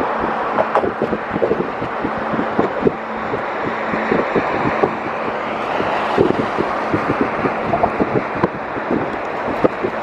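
Steady rushing noise of a moving vehicle, with wind buffeting the microphone in irregular short thumps and a faint steady hum underneath.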